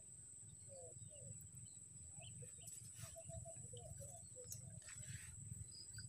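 Faint scattered chirps of a young plain prinia chattering in the undergrowth, over a steady high-pitched whine.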